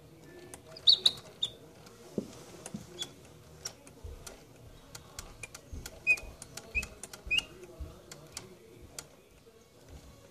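Wind-up mechanical singing-bird cage chirping: short, high whistled chirps in small groups, about a second in and again a little after six seconds, over many sharp clicks.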